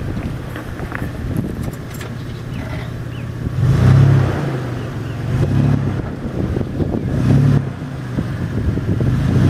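Third-generation Toyota 4Runner's engine running at low revs as it crawls over loose dirt mounds, its note rising three times, about four, five and a half and seven seconds in, as the throttle is pressed.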